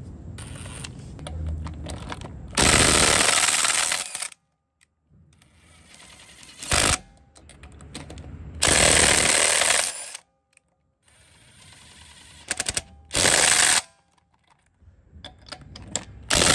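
DeWalt DCF845 cordless impact driver hammering lug nuts loose through a socket adapter: about five loud bursts of rapid impacting, most of them a second or more long and one very brief, with quieter running between.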